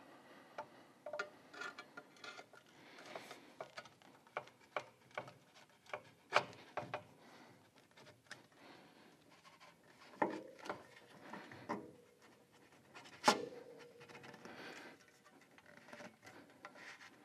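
Stainless steel muffler of a Trask 2-into-1 exhaust being worked onto its head pipe by hand: scattered light clicks, knocks and metal-on-metal scraping. Two louder clanks come about six and thirteen seconds in, the second ringing briefly.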